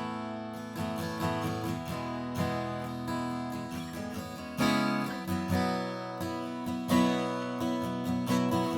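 Furch-built Stanford D5 Pro dreadnought acoustic guitar with phosphor bronze strings, played with a pick. Single notes and chords are picked and left ringing, with a louder strummed chord about halfway through and another near the end.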